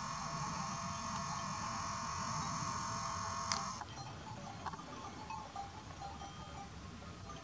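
A steady high hum with several held tones stops suddenly just after a sharp click a little over three seconds in. After that, faint scattered tinkling of flock bells on grazing sheep or goats can be heard.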